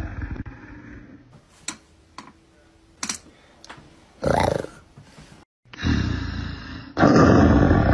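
Big-cat roar sound effect fading out, then a quiet stretch with a few light clicks and a short sound about four seconds in. After a brief dropout the roar sound effect starts again just before six seconds in and comes back louder about a second later.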